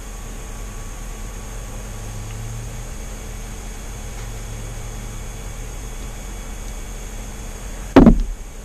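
Steady mechanical hum and hiss, like a fan or air conditioner running. Near the end, one sudden loud knock with a brief tone that slides quickly downward and dies away.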